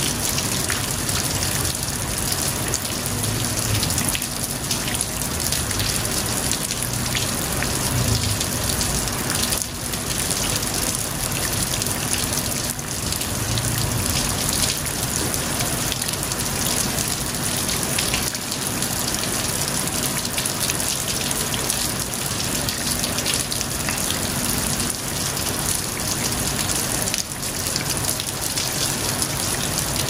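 Heavy rain pouring steadily, a dense even hiss of drops that never lets up.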